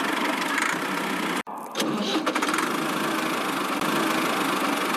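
A small motor running steadily, cutting out abruptly about a second and a half in and picking up again a moment later.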